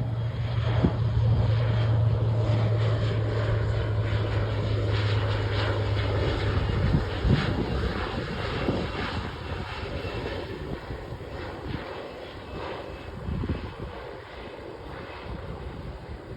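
Alenia HC-27J Spartan's twin turboprop engines and propellers passing on landing: a steady low propeller drone with engine noise, loudest in the first several seconds. The drone drops out about seven seconds in, and the remaining noise fades as the aircraft moves away.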